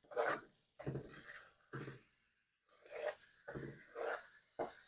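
Pieces of raw chicken breast being laid into a hot, oiled skillet, each one giving a short sizzle. About seven of these bursts come in an uneven run.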